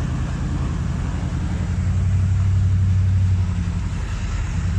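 A vehicle's engine running as it drives through floodwater, with water splashing and hissing against the body, heard from inside the cabin. The engine hum grows louder about two seconds in.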